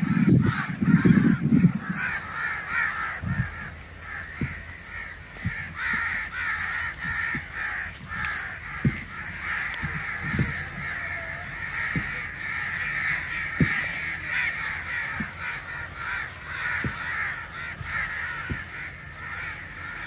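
Many crows cawing together in a dense, overlapping chorus that does not let up, with scattered short low thumps beneath it.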